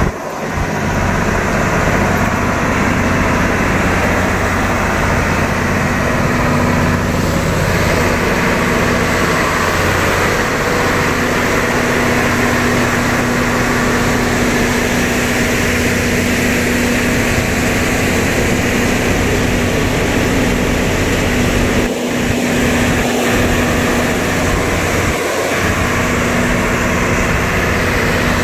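Lippmann 4800R portable impact crusher plant running at work crushing shell rock: a loud, steady drone of its diesel power unit and crusher together, with a constant hum under a broad grinding rush.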